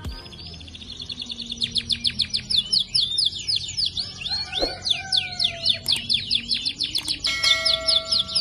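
Female canary chirping in a fast, continuous series of short falling notes, about six a second, growing louder after the first second or so. These are calls of a hen canary in breeding condition, used as a lure to stir breeding drive in other canaries.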